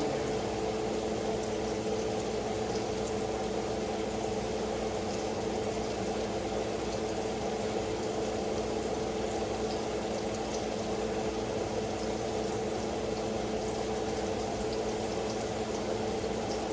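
A steady mechanical hum with an even hiss underneath, the sound of a kitchen appliance running.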